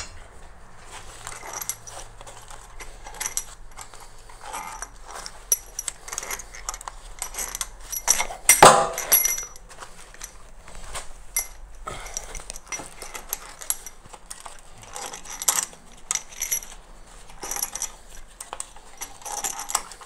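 Long steel cylinder-head bolts being drawn out of a DW12 2.2 HDi diesel's cylinder head and gathered in a gloved hand, clinking against one another and the metal of the head in short irregular clicks, with a louder clatter about eight and a half seconds in.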